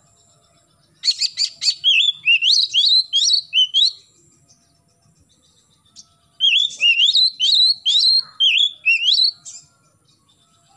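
Oriental magpie-robin (kacer) singing: two bursts of quick whistled notes that glide up and down in pitch, each opening with a few harsh clicky notes. The first comes about a second in, the second just past the middle, with a quiet pause between.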